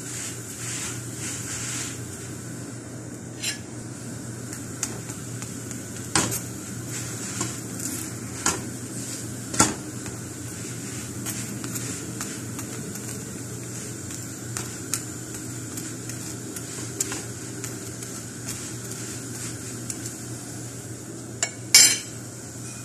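Flat iron griddle on a gas stove clinking and knocking as flatbread is turned on it, a few scattered knocks with a loud double knock near the end, over a steady hiss.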